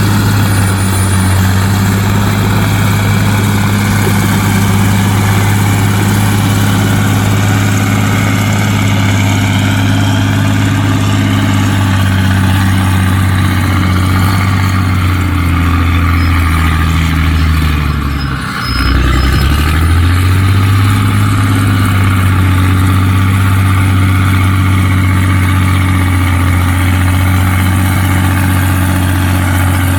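Heavy diesel engine of construction machinery running steadily. About two-thirds of the way through, its revs drop sharply for a moment and then climb back up.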